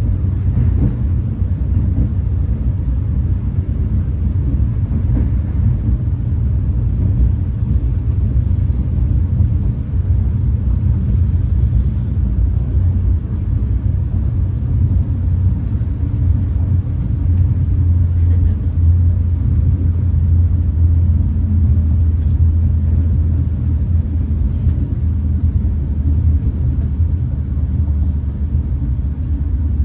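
Steady low rumble of a Renfe class 130 (Talgo 250) high-speed train running along the line, heard from inside the passenger car.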